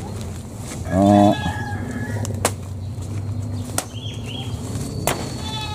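A machete chopping at a thin wooden pole: three sharp knocks, each about 1.3 s apart. There is a short loud pitched call about a second in, and faint bird chirps behind.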